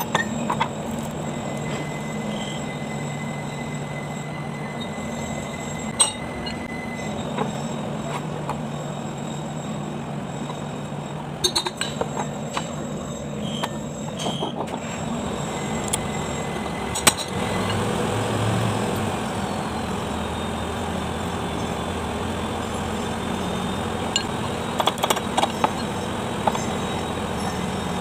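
Occasional light metallic clinks and knocks as the cast front-axle housings, bevel gears and bearings of a Kubota Sunshine 225 tractor are handled and set down on the bench, over a steady low background hum. A louder low rumble swells and fades a little past the middle.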